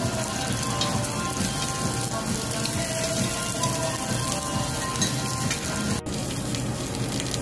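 Lamb and vegetables sizzling on a hot cast-iron Genghis Khan dome grill: a steady crackling hiss that drops out for an instant about six seconds in.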